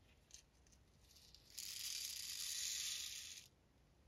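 Tungsten super shot (TSS) pellets poured into a plastic .410 shotshell hull onto the wad. They make a steady hissing trickle for about two seconds, starting about a second and a half in.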